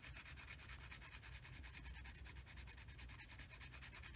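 Faint scratching of a Faber-Castell Polychromos coloured pencil shading on mixed media paper.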